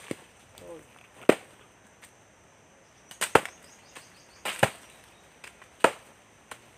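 Ripe mangoes thrown down from the tree smacking into a woven sack held up to catch them, so they don't split on the ground: several sharp hits at uneven intervals, two of them in quick succession.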